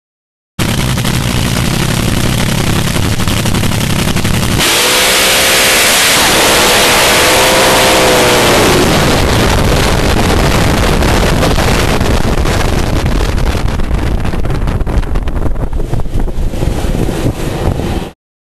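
Supercharged, nitro-burning V8 of a front-engine AA/Fuel dragster heard from its onboard camera, very loud throughout. A steady, deep engine note for the first few seconds changes abruptly to a harsher, denser roar with wind noise during the run, then thins out and cuts off suddenly near the end.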